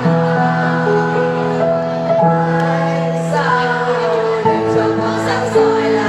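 School choir of ninth-grade students singing together, holding long notes that change pitch every second or two.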